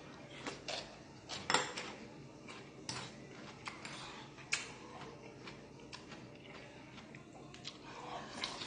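Eating sounds of galbitang: irregular light clicks of a metal spoon and chopsticks against an earthenware bowl and side dishes, with brief chewing and slurping noises in between.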